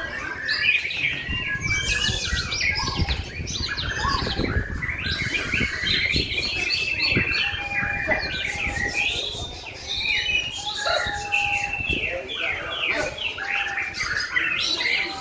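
Several caged white-rumped shamas (murai batu) singing over one another in contest, a dense, continuous tangle of varied whistles and chirps with no pause.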